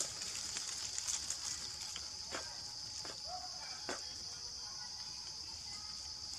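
A young macaque biting and chewing a ripe yellow fruit held out by hand: a few short wet smacking clicks about two and a half, three and four seconds in, over a steady high hiss.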